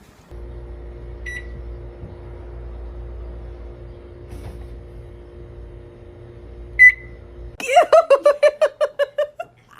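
Microwave oven running with a steady electrical hum. A faint beep comes about a second in, and a loud high beep comes near the end. The hum then cuts off, followed by a quick run of short voiced sounds.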